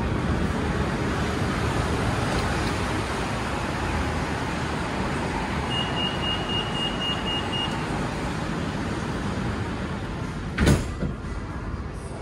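BTS Skytrain train noise, a steady rush heard aboard the carriage. About six seconds in a high electronic beep sounds for about two seconds, and a sharp knock comes near the end.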